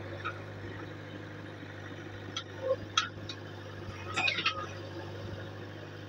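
JCB 3DX backhoe loader's diesel engine running steadily while the backhoe digs. A few sharp clinks and knocks from the digging come through around the middle, with a short cluster of them just past it.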